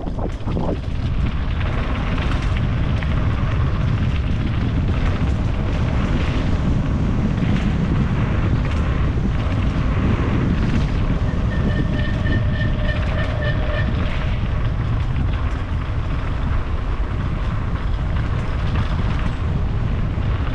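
Steady loud rumble with wind buffeting the microphone, like moving fast in the open. A short run of high pips sounds about twelve to fourteen seconds in.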